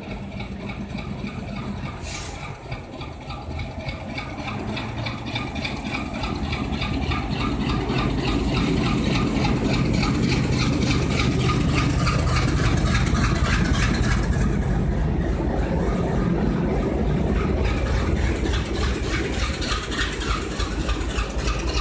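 Diesel locomotive engine running as the locomotive passes close by, growing louder over the first several seconds and then staying loud with a fast, even throb.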